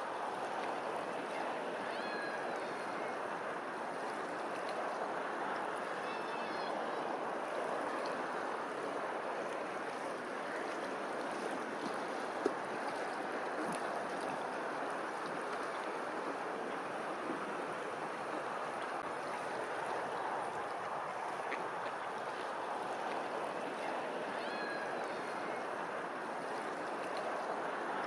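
Steady rush of moving water, with a few faint short bird chirps over it and a single click near the middle.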